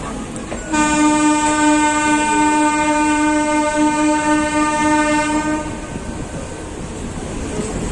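Train horn giving one long blast of about five seconds on a single steady note, sounded as the train departs. A steady rumble of noise runs underneath.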